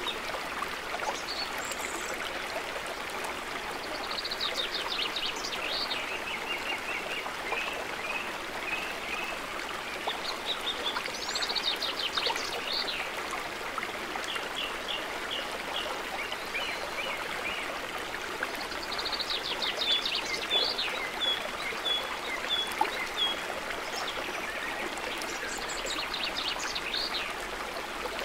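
Shallow woodland stream running steadily over rocks. Small songbirds sing over the water on and off, in quick trills and short runs of repeated chirps.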